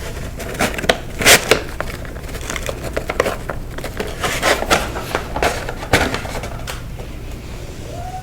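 Gym chalk being crushed: a quick run of irregular, crisp crunches, loudest about a second in, thinning out near the end.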